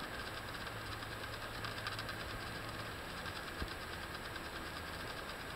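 Metal lathe running: a steady motor hum with a fine, rapid mechanical clatter, and one light knock about two-thirds of the way in.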